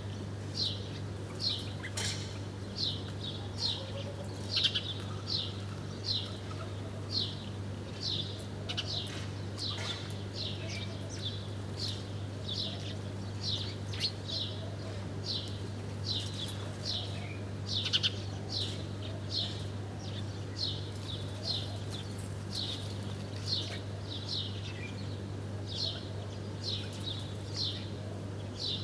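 A small bird chirping over and over, one short high chirp about every half second to second, on and on without a break, over a steady low hum.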